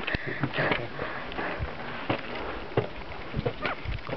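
Heavy breathing of a person out of breath from climbing, with scattered short taps and scuffs of footsteps and handling.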